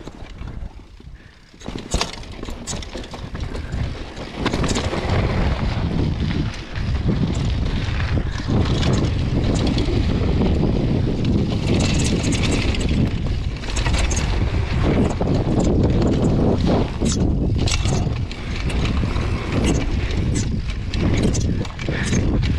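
Downhill mountain bike ride: the tyres rolling on a dirt trail, wind rumbling over the microphone, and frequent short clattering knocks from the bike over bumps. It is fairly quiet at first, grows loud about two seconds in as the bike gathers speed, and rises again around four seconds in.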